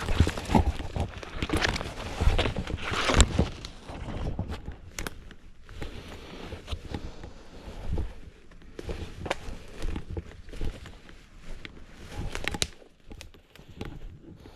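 Footsteps crunching and rustling through leaf litter and twigs on the forest floor, irregular crackles that are loudest over the first few seconds and then thin out.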